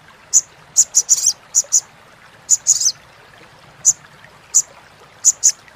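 Male olive-backed sunbird (sogok ontong) giving its chattering 'crecetan' call: about a dozen short, sharp, very high notes in quick irregular clusters.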